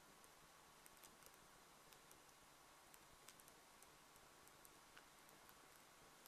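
Near silence: faint room tone with a steady hiss and scattered, irregular faint clicks.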